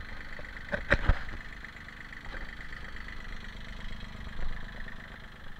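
Small Kubota compact tractor's diesel engine running steadily, with two sharp knocks about a second in.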